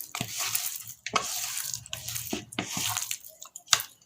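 Hands mixing fish pieces in a thick, wet masala marinade with curry leaves: irregular squishing with small clicks and crackles.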